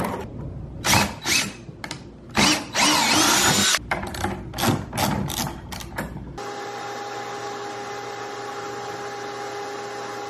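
Tools clicking and knocking against a router sled's aluminium linkage, with a cordless drill running for about a second and a half near the middle. About six seconds in this gives way to a steady hum with a few held tones.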